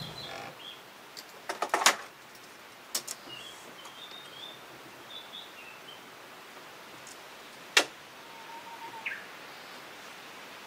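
Sharp clicks and taps as a steel tape measure is handled against a wooden frame, the loudest cluster about two seconds in and a single sharp click about eight seconds in. Birds chirp faintly between the clicks.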